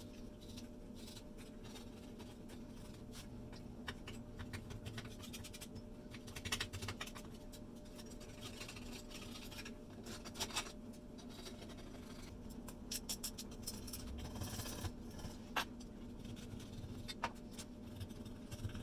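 Light, intermittent scratching strokes and small clicks from hand work on a tool, over a steady low hum.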